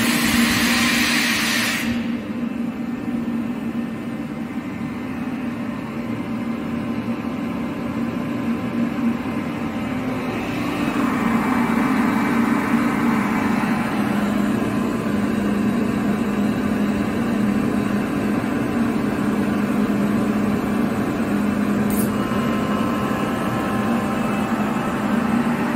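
Kaeser SK27T screw air compressor running with a steady hum. Compressed air hisses out of the receiver for the first two seconds and cuts off suddenly. About ten seconds in the compressor runs louder and fuller: with the receiver pressure let down, it has gone back on load.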